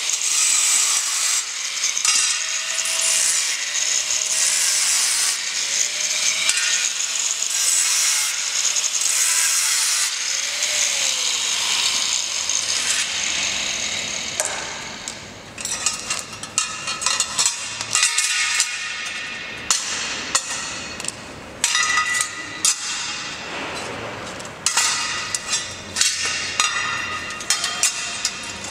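Angle grinder with an abrasive cut-off disc cutting a metal bracket plate: a loud, high grinding noise with short breaks, its motor pitch dipping and recovering as the disc bites. About 13 seconds in the grinding fades out and is followed by scattered clinks and knocks of metal parts being handled.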